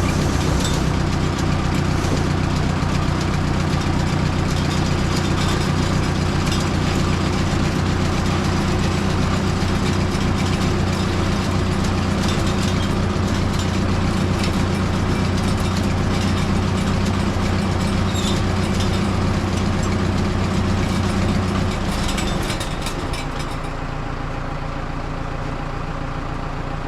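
Mobile Dimension sawmill's engine running steadily, then dropping to a lower, quieter run a little over 20 seconds in.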